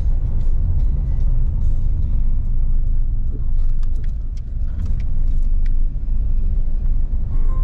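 Car driving over a cobblestone street, heard from inside the cabin: a steady low tyre-and-road rumble with scattered small clicks and rattles.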